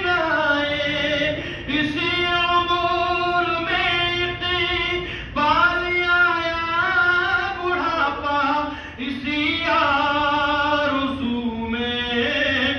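A man's voice chanting a melodic Islamic recitation or supplication through a microphone and loudspeaker, in long held phrases of a second or two with short pauses for breath between them.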